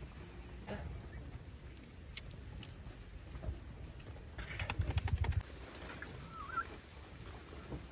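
A ewe being hand-milked into a plastic bucket: about a second of quick, rapid squirts and handling noise midway, with a short bird chirp soon after.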